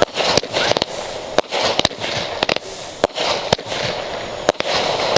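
Consumer fireworks going off: a rapid, irregular string of sharp bangs, about two a second, over a steady crackling hiss.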